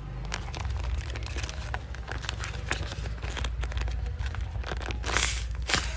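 Paper and tape crinkling and crackling as a handmade paper squishy is squeezed and handled, with many small crackles and a louder rustle about five seconds in.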